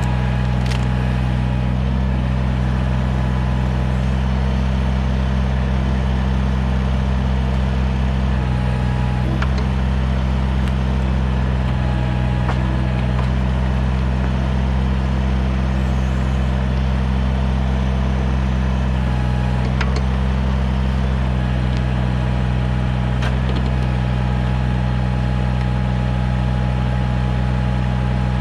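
Kubota BX compact tractor's three-cylinder diesel engine running steadily, with a few faint clicks now and then.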